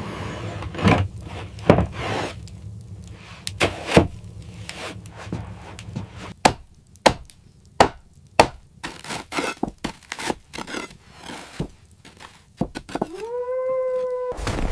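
A series of irregular, sharp wooden knocks like chopping or splitting wood. Near the end comes a held tone that rises at its start and lasts about a second and a half.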